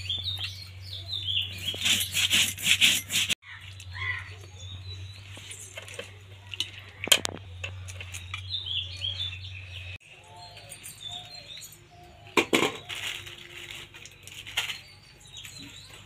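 A stone muller is rubbed back and forth over a grinding slab in quick strokes, mashing wet spice paste, and stops about three seconds in. After that birds chirp, and there is one sharp knock about seven seconds in.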